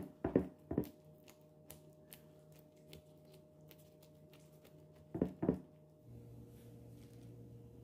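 Gloved fingertips pressing dimples into soft, wet yeast dough in a baking dish: a few short knocks, two near the start and two more about five seconds in, over a faint steady hum.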